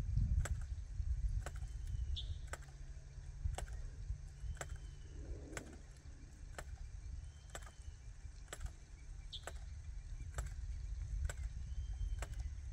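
Hand jab planter (matraca) clacking about once a second as it is jabbed into the soil to drop corn seed and fertiliser, over a steady low rumble.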